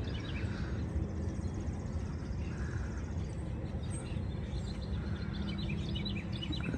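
Songbirds chirping and twittering in many short, high notes over a steady low background rumble.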